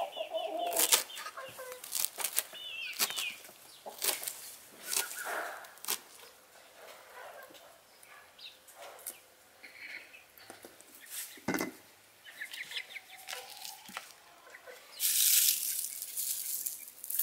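A knife chopping fresh coriander on a wooden board in a string of clicks, with hens clucking now and then. Near the end, a loud rustling crackle of dried chamomile flowers being handled.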